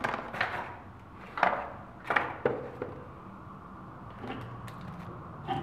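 Handling noise from unpacking: a few short rustles and knocks in the first couple of seconds as coiled Ethernet cables are set down in a cardboard box, then quieter handling.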